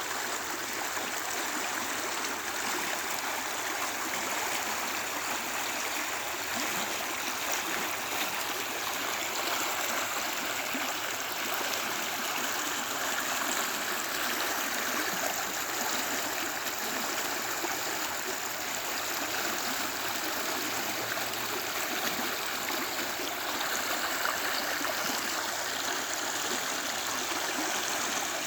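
Creek water flowing steadily over rocks, a continuous rushing and babbling.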